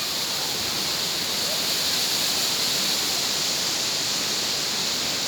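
Strong wind rushing through coconut palm fronds, a steady high hiss.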